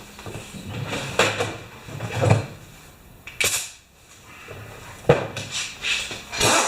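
Hand tools and metal parts being handled on a lawn mower: a few sharp knocks and clicks with short rustling and scraping stretches between them.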